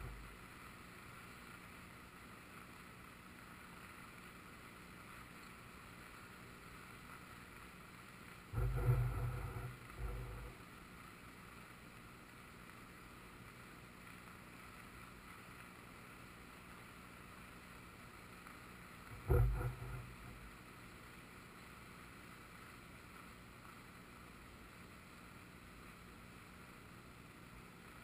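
Steady rushing of a river in flood, with two short bursts of low rumbling, about nine and nineteen seconds in, that are the loudest sounds.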